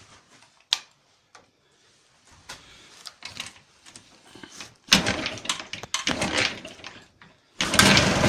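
Jawa 350 type 638 two-stroke twin motorcycle engine being started: a few faint clicks, a loud irregular stretch about five seconds in lasting some two seconds, then the engine catches near the end and runs steadily. The owner reports a knock from the right cylinder that has grown louder over the past month.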